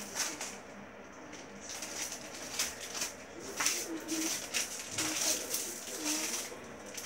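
Scattered clicks, taps and rustles of toys and packaging being handled, with a few soft, low wavering hums in the middle and near the end.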